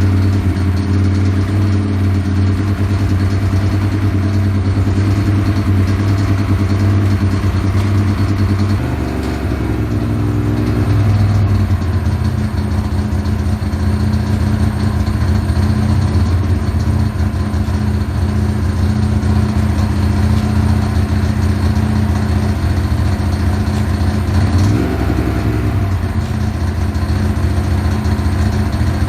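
Ducati 916's fuel-injected 90-degree V-twin running at idle, freshly started after a cam-belt and valve service. The note shifts for a few seconds about nine seconds in, and the pitch rises and falls briefly about 25 seconds in.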